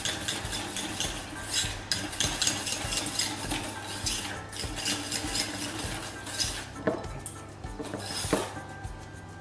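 Hand whisk beating egg and flour batter in a stainless steel bowl: rapid clinking and scraping of wire against metal, easing off after about six and a half seconds, with two sharper knocks against the bowl near the end.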